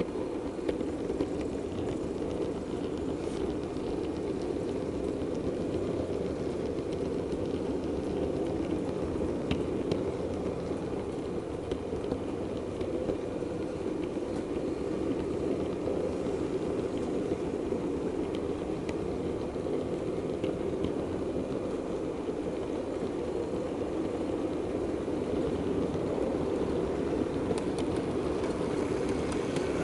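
A model diesel multiple unit running along the track, heard from on board: a steady rumble of motor and wheels on the rails with a few faint clicks, growing slightly louder near the end.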